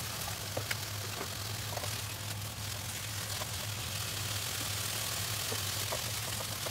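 Snow peas, carrot and mushroom sizzling in a nonstick wok on a gas burner, with a few light taps of a spatula, over a steady low hum.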